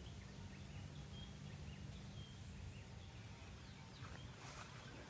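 Faint outdoor ambience with distant birds chirping in short, high calls, over a low steady hum that fades out about three seconds in.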